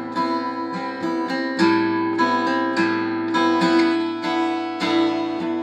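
Donner DAG-1E acoustic dreadnought guitar being played solo: chords struck about three times a second, each ringing on into the next.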